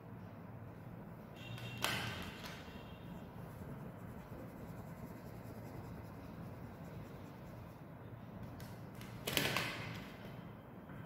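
Oil pastel rubbing on paper as a wing is shaded in, a faint scratching over steady background noise. Twice, about two seconds in and near the end, a short sharp noise cuts in and fades over about half a second.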